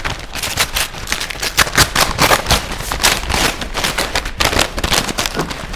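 Brown paper mailer envelope being torn open and crumpled by hand: a dense, continuous run of crackles and rips.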